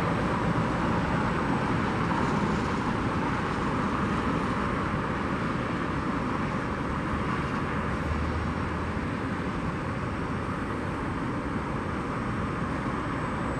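Steady jet engine noise from a Boeing 777-300ER's two GE90-115B turbofans as the airliner rolls along the runway, slowly growing fainter.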